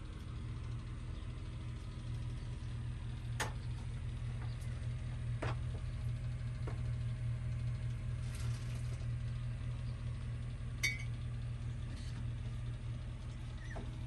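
A steady low mechanical hum, with a few faint clicks and clinks of dishes and utensils.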